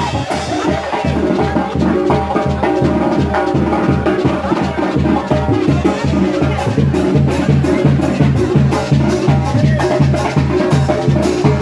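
Loud live band music, the kind of brass band that plays for Oaxacan muerteadas, with a steady drum beat under held instrument notes; sharp regular strikes join the beat about halfway through.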